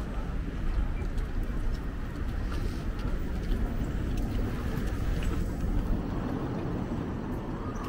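City street ambience: a steady low rumble of traffic with faint scattered clicks.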